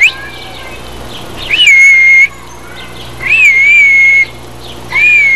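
A short rising chirp, then three loud, long whistled notes about a second and a half apart, each sliding up and then held at one steady pitch.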